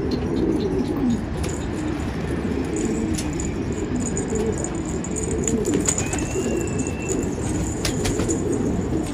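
A flock of domestic pigeons cooing steadily together, with a brief clatter of wings near the end as one bird takes off.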